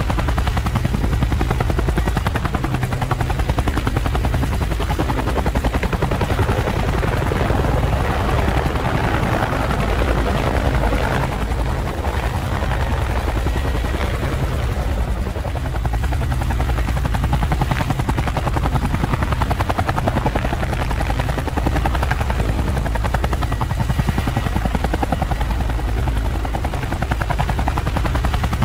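Multirotor camera drone hovering, its propellers giving a steady, rapidly pulsing buzz that does not change.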